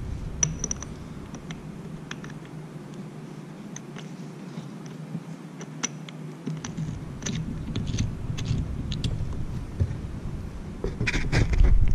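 Scattered small metallic clicks and scrapes as an M12 x 1.75 hand tap is worked in a freshly cut thread in a steel part. A louder stretch of bumps and rustle comes near the end.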